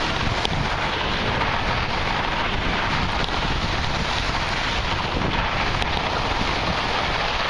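Steady wind rush buffeting the microphone of a skier's camera moving fast downhill, mixed with the continuous hiss of skis carving over the snow.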